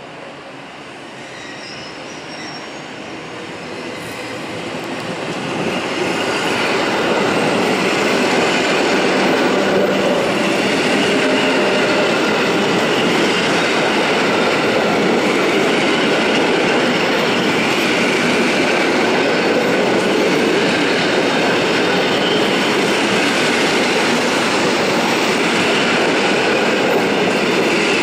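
An older EN57-family electric multiple unit approaching and passing close along the platform. Its wheel and running noise grows louder over the first several seconds, then holds as a steady, loud rumble with faint high tones as the cars go by.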